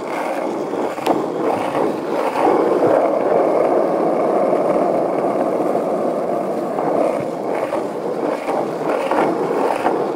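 Skateboard wheels rolling on pavement as a steady rumble, with a couple of clicks in the first second. It gets louder about two seconds in and holds steady.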